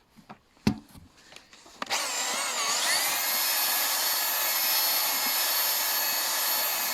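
Power drill stirring wood ash into thickened used motor oil. A few faint knocks, then about two seconds in it starts, its whine rising for a second before it runs steadily.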